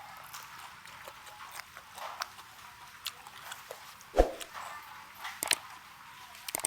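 Close-miked eating of raw prawn: scattered wet mouth clicks and smacks of chewing, with a louder knock about four seconds in.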